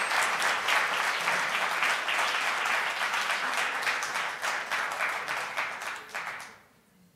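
Audience applauding, a dense steady clapping that dies away about six and a half seconds in.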